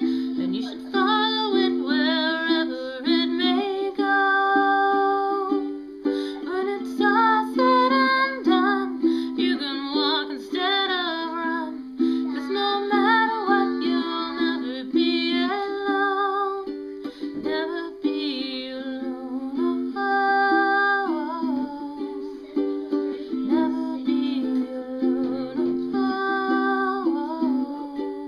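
Background music: a ukulele-led song with steady chords under a wavering melody line.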